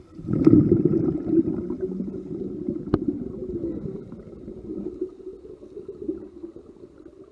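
Underwater bubbling and rushing water heard through a camera held underwater: it starts suddenly about half a second in and slowly fades, with one sharp click about three seconds in.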